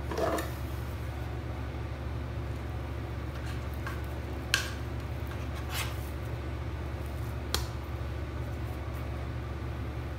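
A kitchen knife cutting through a log of dough and tapping the marble countertop three times, a second or two apart, over a steady low hum.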